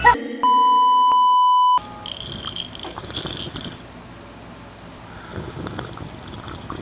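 A loud, steady electronic beep at one pitch, held for about a second and a half and cut off sharply, followed by faint room noise.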